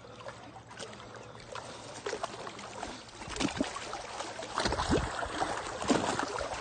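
A hooked largemouth bass splashing at the water's surface as it is reeled in close, in irregular bursts that begin about halfway through.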